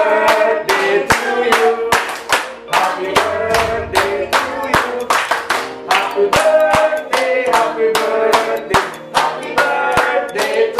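An upbeat song with singing, and a group of people clapping their hands along to its steady beat.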